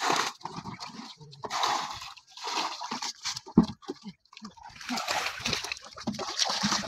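Muddy water splashing and sloshing: a bucketful is poured out over the side of a wooden boat right at the start, then hands scoop and slap through shallow water in the boat's bottom in a series of irregular splashes.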